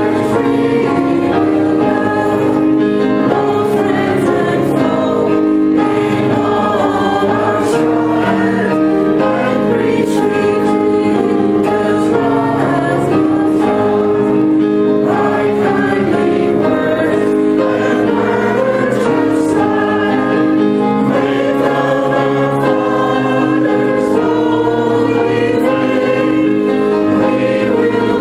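A church congregation singing a hymn together in held, steady notes, with instrumental accompaniment.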